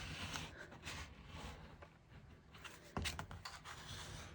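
A hand tool rubbing and pressing over glued paper or cardstock, a faint scratchy scraping in short strokes, with one sharp knock about three seconds in.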